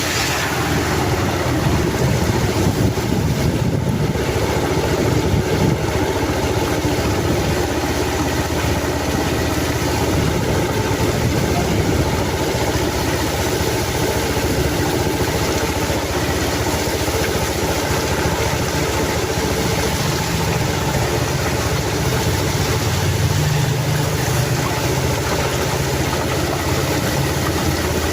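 Motor vehicle engine running steadily, under a constant rushing noise.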